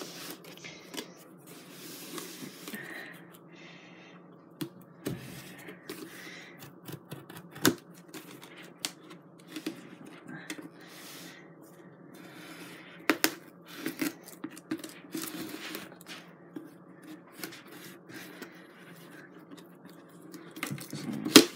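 Packing tape on a cardboard shipping box being slit and scraped open with a thin blade, with scattered clicks and taps on the cardboard and a sharp knock near the end. A faint steady hum runs underneath.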